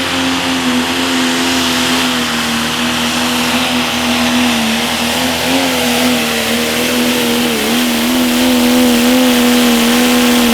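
Turbocharged diesel engine of a John Deere Pro Stock pulling tractor held at full throttle under load during a pull, running at a steady high pitch over a turbo hiss, with slight wavers in speed. The engine note drops off abruptly at the very end as the throttle comes back.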